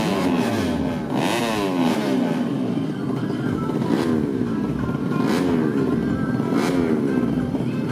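Underbone drag motorcycle engine revving hard as it accelerates through the gears. Its pitch climbs and drops back at each of several gear changes.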